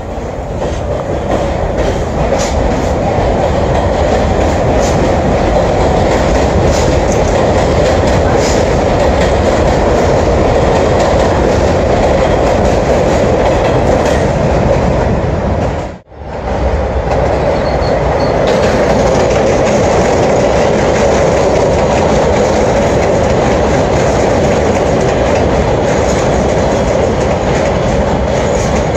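New York City subway 6 train running along an elevated station: steady, loud wheel and rail noise with clickety-clack from the rail joints. The sound cuts out for a moment about halfway in, then another train's running noise carries on.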